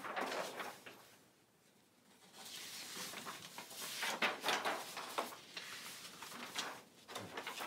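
Large sheets of printed paper rustling as they are pulled off a stack and flipped aside by hand. After a short quiet spell, a run of uneven rustles follows.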